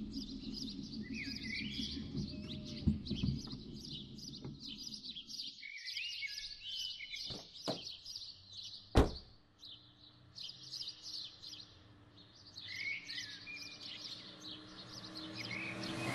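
Birds chirping steadily and rapidly, with a few falling whistled calls among them. A low rumble stops about six seconds in, there are several sharp knocks, the loudest about nine seconds in, and a car comes up near the end.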